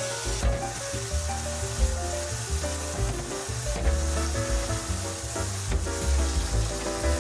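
Food sizzling in a hot pan, a steady hiss, over light background music.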